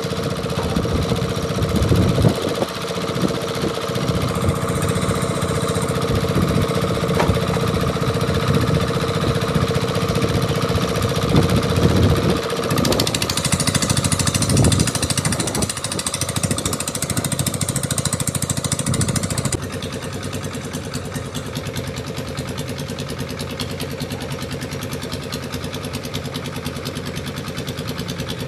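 A motor engine running steadily with an even rapid beat. Its sound changes about halfway through, and it becomes somewhat quieter about two-thirds of the way through.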